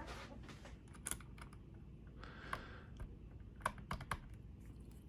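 Scattered light clicks and small rattles of metal lockpicking tools being handled while a tension wrench is picked out, with a brief soft rustle midway.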